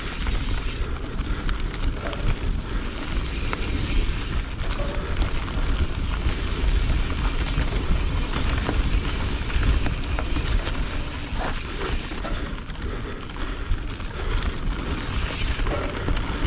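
Wind buffeting an action camera's microphone while a Canyon Strive enduro mountain bike runs fast down a dirt trail, a constant low rumble with the tyres rolling over the ground and scattered clicks and rattles from the bike.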